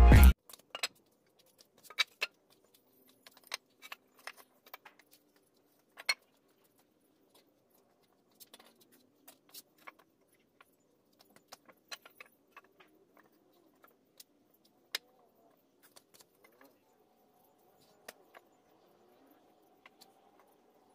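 Scattered light knocks and clicks of wooden boards being handled and set against each other and the concrete, one every second or so with quiet gaps between. Loud intro music cuts off right at the start.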